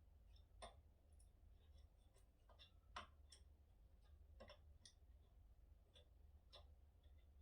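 Faint, irregular clicks and light taps, about ten of them, the sharpest about three seconds in, over a steady low hum.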